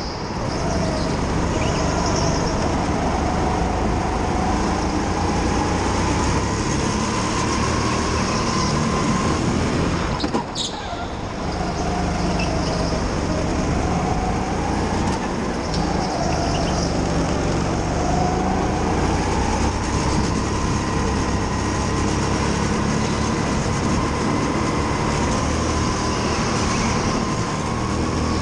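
Go-kart running flat out on a lap, heard from on board: a continuous motor and drive noise whose pitch rises and falls with speed through the corners. About ten seconds in it briefly drops, then picks up again.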